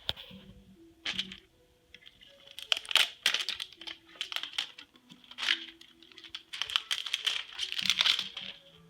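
Cardboard and plastic packaging of an Apple TV box being opened by hand: bouts of crinkling and sharp clicks, with quieter gaps between, strongest about three seconds in and again toward the end.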